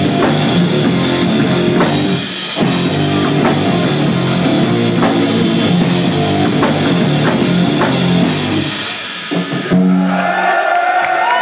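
Live rock band with electric guitars and a drum kit playing loud, with a short break about two seconds in. The song ends with a final hit near the end, giving way to crowd noise.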